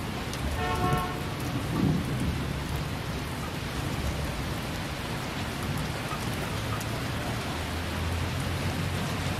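Heavy rain pouring down and runoff water rushing along a flooded street, with low rumbles of thunder in the first two seconds.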